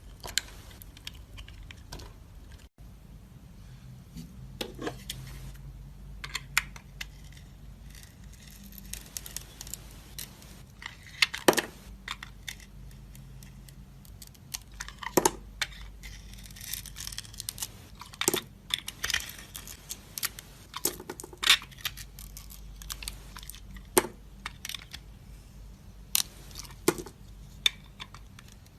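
A knife cutting and carving dry soap, giving irregular crisp crunches and scrapes with a few louder sharp snaps every few seconds.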